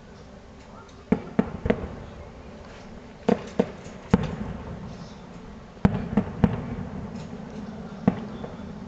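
Fireworks display: about ten sharp bangs of bursting fireworks, falling in quick clusters of two or three.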